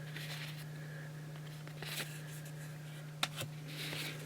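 Baseball trading cards handled and slid against one another as they are flipped through by hand. There are a few soft scraping sounds and a sharp click a little after three seconds, over a steady low electrical hum.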